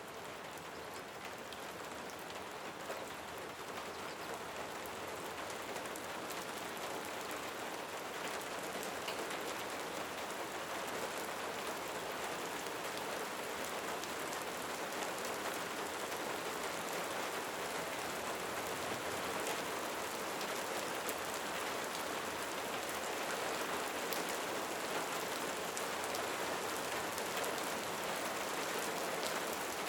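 Steady rain falling, a continuous hiss dotted with the patter of individual drops, swelling slightly over the first several seconds.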